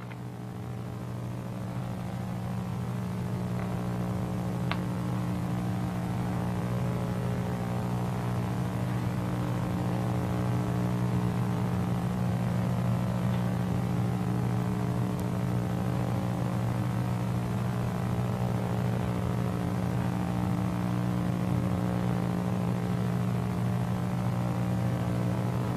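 A steady low electrical hum with hiss, growing slightly louder over the first few seconds.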